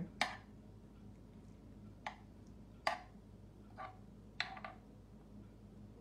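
Metal spoon knocking lightly against a muffin pan while pressing spaghetti into the cups: about six short clicks at uneven intervals.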